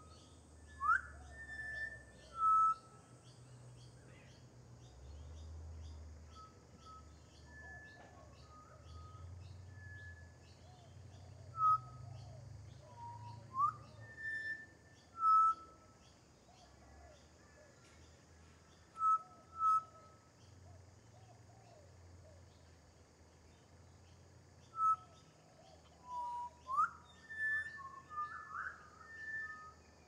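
Pied butcherbird singing: clear, flute-like whistled notes, single or in short phrases with a few quick upward slurs, spaced out by pauses, with a denser run near the end.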